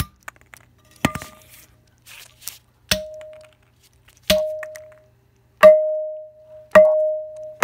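A metal tool struck repeatedly against a hard floor: about six sharp blows a second or so apart, growing louder, the last four each leaving a brief metallic ring. The blows are misses at a small Lego piece.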